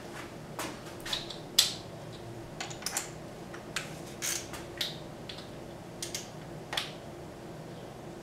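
Irregular metallic clicks and clinks, about a dozen, of a digital torque wrench and its socket being handled and fitted onto a bolt, over a steady faint hum.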